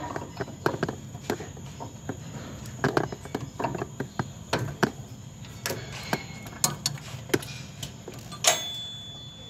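Irregular light clicks and knocks of hand tools and metal parts, roughly two a second, during removal work on a truck's brake valve module. A sharper knock comes about eight and a half seconds in.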